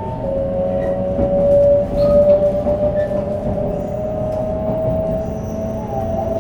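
Shinkansen 500 series running, with the whine of its Toshiba GTO-VVVF inverter and traction motors rising slowly in pitch as the train gathers speed. Underneath is a steady rumble of wheels on rail with a few scattered clicks.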